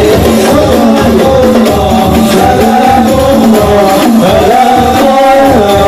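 Hadroh ensemble performing sholawat: men sing a devotional song together through microphones over a steady rhythm of hand-struck rebana frame drums.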